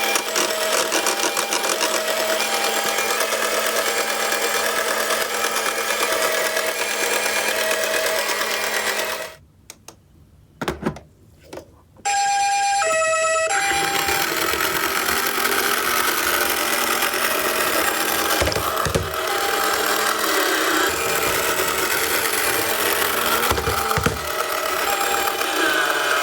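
Toy ambulance minicars rolling and rattling down a cardboard slope, with a two-note "pee-po" ambulance siren repeating over it. About a third of the way in the rattling stops for a few seconds, leaving a few clicks and two siren notes alone, then starts again.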